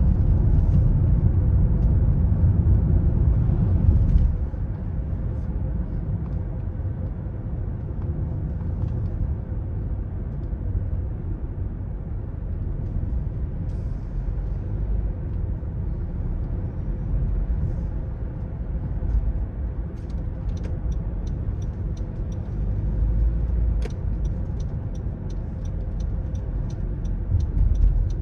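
A car driving, with a steady low rumble of engine and tyre noise that drops in level about four seconds in. In the last several seconds a turn-signal indicator ticks about twice a second.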